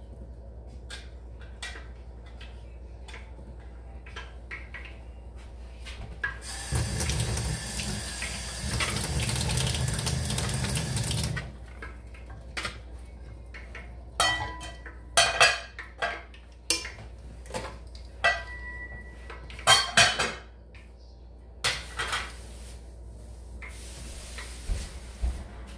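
Kitchen tap running into a sink for about five seconds, then dishes and utensils clinking and clattering, some strikes ringing briefly, and a fainter hiss of running water near the end.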